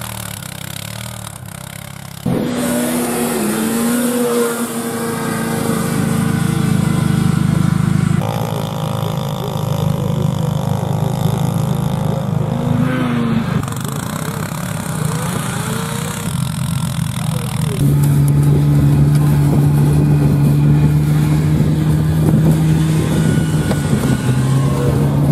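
A four-wheel ATV engine running and revving under load as it tows a rider on a sled across snow. The sound jumps between short clips every few seconds, each with its own steady engine note.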